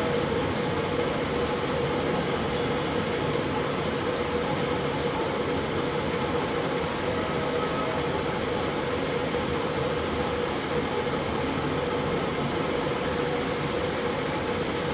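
Steady whirring of a running electric fan, an even rushing noise with a constant hum under it that does not change.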